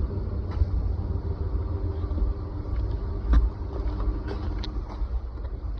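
Truck engine idling with a steady low rumble and a few light ticks, which the owner puts down to bad VVT solenoids that have been setting codes.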